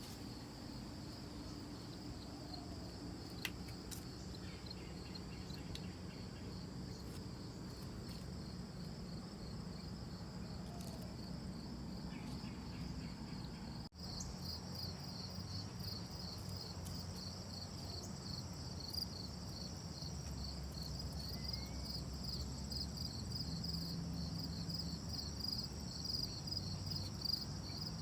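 Crickets chirping in a steady, fast-pulsing chorus over a faint low rumble. There is a sudden break about halfway through, after which the chirping is louder.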